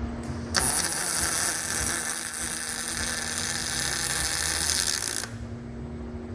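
Robotic MIG welding arc crackling and sizzling steadily for about four and a half seconds, starting about half a second in and cutting off suddenly, with a brief hiss just before it starts and a steady machine hum underneath.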